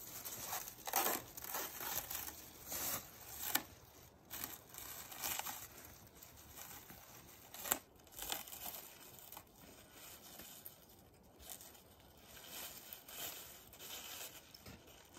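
Clear plastic stretch wrap being pulled, torn and crinkled off long metal roofing trim, in irregular crackling rips with a few sharper snaps.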